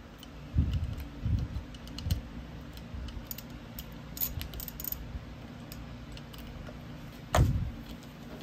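Metal hand-tool work on a Hitachi S12-88 starter motor: light metallic clinks and ticks as a nut driver works the bolts of a new solenoid (magnet switch). There are a few dull knocks near the start and a sharper, louder knock about seven seconds in.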